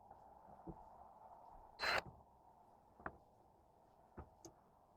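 Faint clicks and small knocks of hands working with small hardware, a screw and nut being fitted, with one louder brief clack about two seconds in over a faint low hum.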